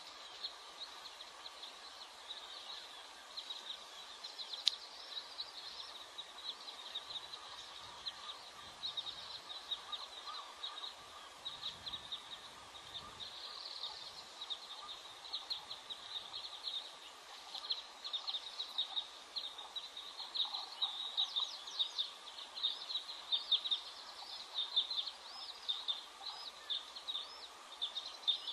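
Birds chirping over a steady hiss: many short, high chirps and down-sweeping notes repeating continuously, growing thicker and louder in the second half.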